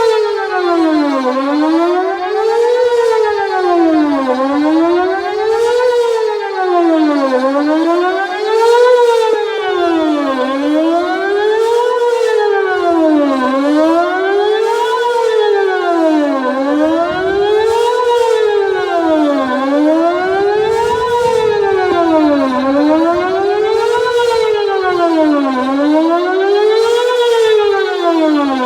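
Whelen WPS-2810 electronic outdoor warning siren sounding a loud wail tone during a monthly test, its pitch rising and falling smoothly about every three seconds.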